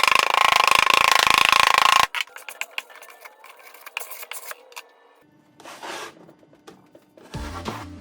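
A small power tool running with a steady whine, which cuts off abruptly about two seconds in; light clicks and knocks follow. Music comes in near the end.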